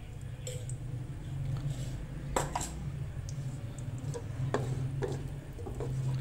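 Wooden spoon knocking and scraping against a non-stick karahi as lumps of desi ghee are pushed around to melt, a scattering of short clicks over a steady low hum.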